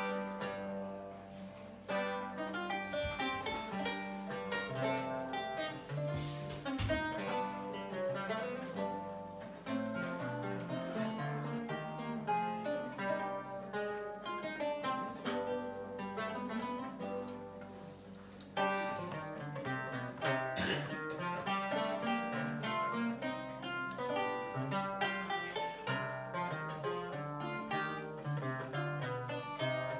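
Six-course Renaissance lute played solo, a flowing line of plucked notes with bass and treble together. There is a brief lull just past the middle before a new phrase begins strongly.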